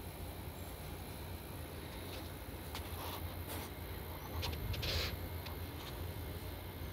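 Low, steady wind rumble, with a few short faint ticks and a brief rustle about five seconds in.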